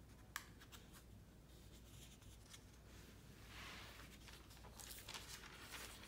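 Faint rustling of thin Bible paper as pages are lifted and turned by hand, swelling from about halfway through, with a single light click near the start.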